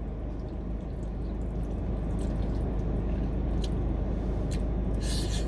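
A fork working spaghetti in a plastic takeout container, with a few light clicks and a brief scrape about five seconds in. A steady low hum from the car cabin runs underneath.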